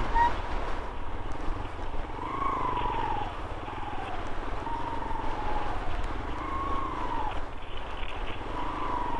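Motorcycle engine running, its note rising and falling every couple of seconds as the throttle is worked on a sandy track, over a low rumble of wind on the helmet microphone.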